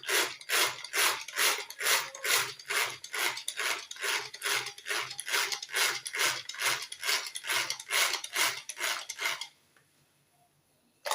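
Stick blender blending hot oils and water into a conditioner emulsion in a bowl. Its sound pulses in a steady rhythm of about two to three strokes a second and stops abruptly near the end.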